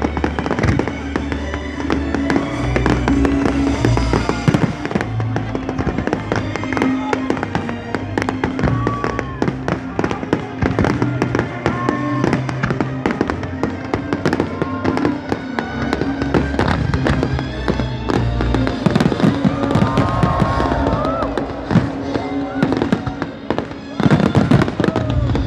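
New Year fireworks going off, a dense run of crackles and bangs, over loud music with a steady bass and people's voices.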